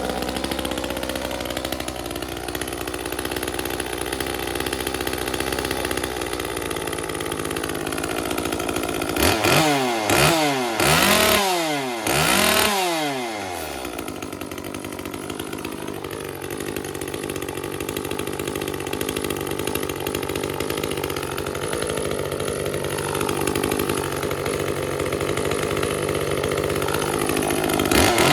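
Echo CS-355 two-stroke chainsaw engine running at idle, blipped to high revs about three times in quick succession partway through and once more near the end. With both mixture screws at their leanest settings it still feels a little on the rich side.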